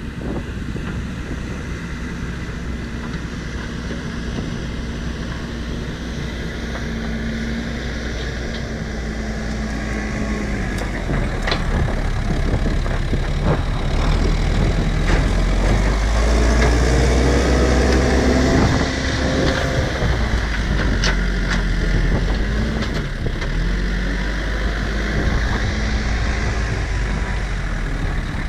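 New Holland B95 backhoe loader's diesel engine running and growing louder as the machine approaches, its pitch rising and falling under load, with a few sharp metallic knocks in the middle.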